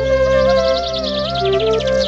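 Background music: a steady low drone under a smooth melody that glides from note to note, with a rapid trill high above it.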